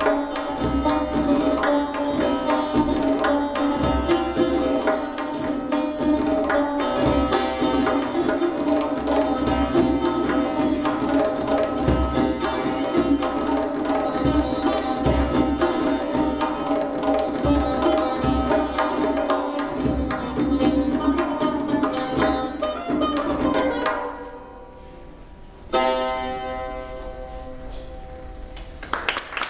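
Persian tar and tombak duet: the tar plays a quick run of plucked notes over steady tombak strokes. About three-quarters of the way through, both break off. A single last tar note is then struck and left ringing as it fades.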